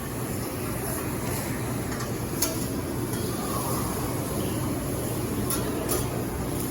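Steady low rumble of a fast-food counter kitchen and its surroundings, with a few short sharp clicks.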